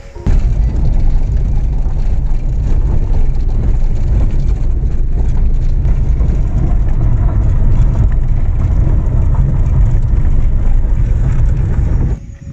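Car driving on a gravel road, heard from inside the cabin: a loud, steady low rumble of engine and tyres on loose gravel. It cuts in just after the start and cuts off near the end.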